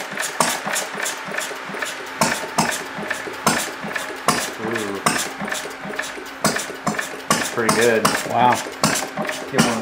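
Small Briggs & Stratton engine fitted with a see-through glass cylinder head, running unevenly: irregular clattering knocks over a steady hum.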